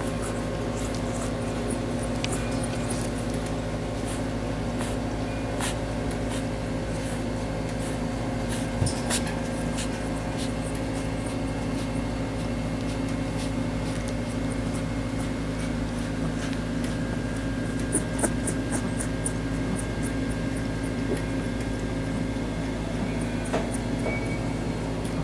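A steady machine hum made of several low, fixed tones, with scattered faint clicks over it and a quick run of ticks about eighteen seconds in.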